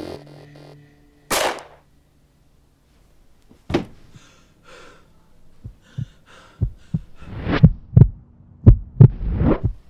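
Heartbeat sound effect: low double thumps about once a second, growing much louder over the last few seconds. A single sharp burst of noise comes about a second in.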